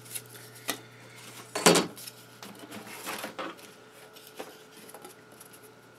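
Foam board pieces being handled and set down on a workbench: one loud knock about two seconds in, with lighter taps and scraping around it, over a steady low hum.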